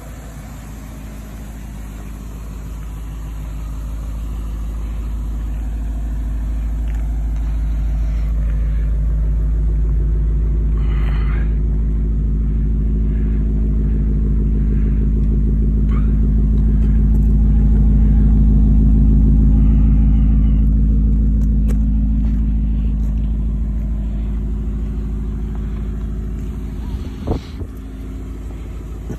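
2000 BMW E39 M5's 4.9-litre S62 V8 idling steadily. It grows louder toward the middle as the tailpipes are passed, then eases off again. A single sharp knock comes near the end.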